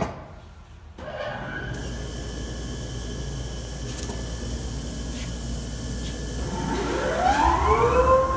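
Format panel saw running while an SIP panel is fed along its table: a knock at the start, then a steady machine hum with a low drone. About six and a half seconds in, a motor whine rises in pitch and levels off at a steady tone near the end, the saw blade motor spinning up to speed.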